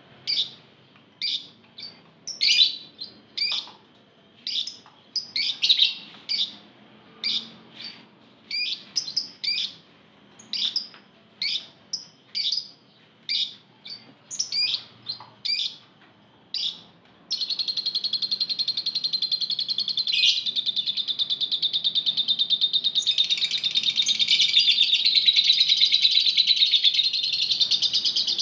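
A flock of Fischer's lovebirds calling. At first they give sharp, separate chirps about twice a second. About 17 s in, a continuous fast chattering trill takes over, the long chatter that keepers call ngekek, and it grows louder from about 23 s in.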